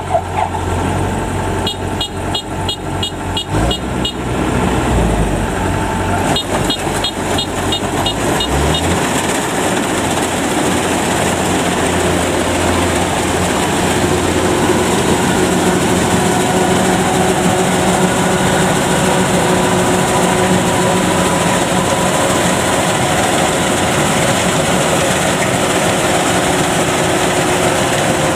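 Kubota DC93 rice combine harvester running steadily as it cuts and threshes rice. Rapid clicking comes in two short runs, about four clicks a second, in the first several seconds.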